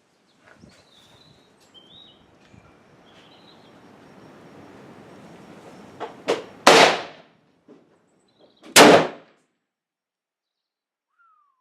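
Two gunshots about two seconds apart, each with a short ringing tail, preceded by a couple of light clicks.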